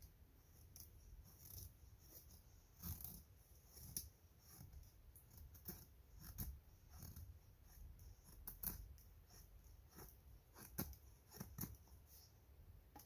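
Knife blade shaving down a dry wooden stick, carving a feather stick for fire-lighting: faint, short scraping strokes, about one a second and unevenly spaced.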